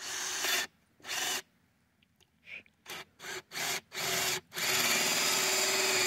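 Ryobi cordless drill boring into a wooden post: a few short bursts of the trigger, then from about four and a half seconds in it runs steadily as the bit cuts in.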